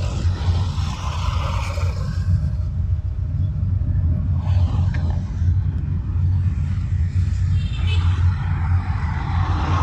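Steady low road and engine rumble of a moving car, picked up by a dashcam in the car, with noise from passing traffic swelling in and out near the start, about halfway and near the end.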